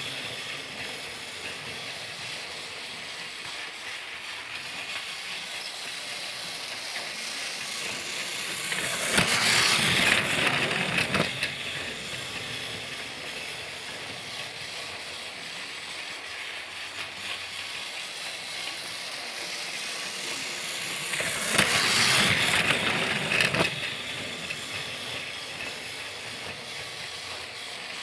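Motorized Thomas the Tank Engine toy train running: a steady mechanical whirr and rattle that swells louder twice, about a third of the way in and again near the end.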